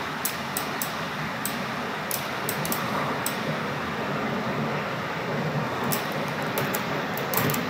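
Steady background hiss from the recording setup, with light, quick computer-mouse clicks scattered irregularly through it and bunched more closely near the end as vertices are picked and dragged.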